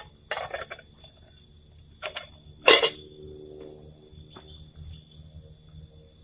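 A few short knocks and scrapes of gear being handled. The loudest comes a little before the middle and leaves a brief ringing tone, like struck metal. A steady high-pitched insect drone runs underneath.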